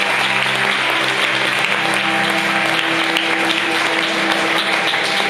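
Audience applauding steadily, with music of held low notes playing underneath.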